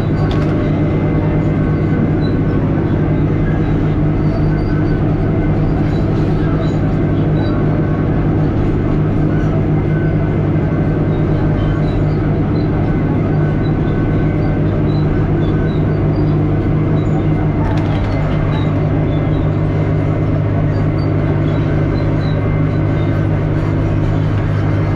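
Komatsu D65 bulldozer's diesel engine running steadily under load, a constant low drone.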